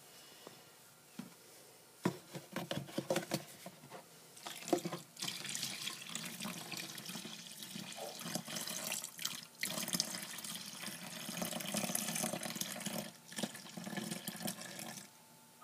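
Soapy rinse water pouring and splashing out of a tipped plastic strainer into a plastic basin of foamy water, starting about two seconds in, with a short break near the end.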